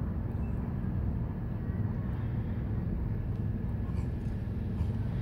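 Steady low rumble of wind buffeting the microphone, with a few faint taps about four seconds in.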